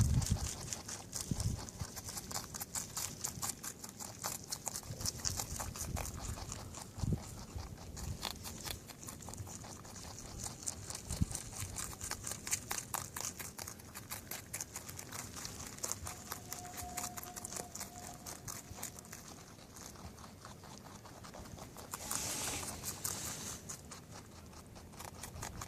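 Rabbits chewing cabbage leaves: a steady run of rapid, crisp crunching clicks.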